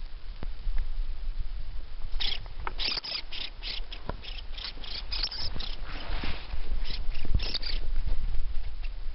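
Norway lemming giving a rapid series of short, harsh squeaks, three or four a second, starting about two seconds in and stopping near the end. These are the defensive threat calls a lemming aims at an intruder. A low rumble runs under them on the microphone.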